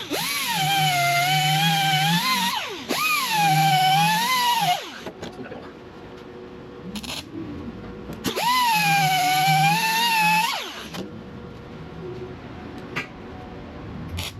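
Handheld electric grinder run in three short bursts on metal. Each burst spins up with a rising whine, holds steady for about two seconds and winds down; the third comes after a pause of a few seconds.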